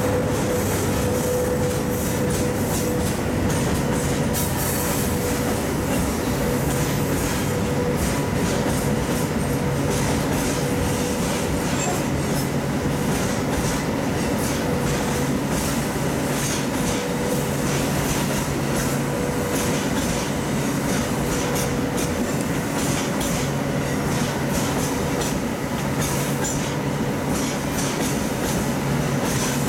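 Freight train wagons rolling past at steady speed: a continuous rail rumble with wheels clicking over rail joints and a steady thin tone running under it.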